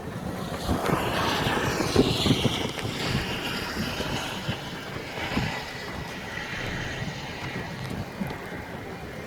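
Gusty wind buffeting the microphone: a steady rushing noise, swelling a second or two in, with irregular low thumps.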